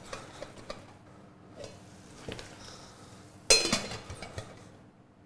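Stainless steel pan with its lid on being handled on the hob, with light metal clicks and one loud metallic clatter of lid against pan about three and a half seconds in, then a few lighter clinks.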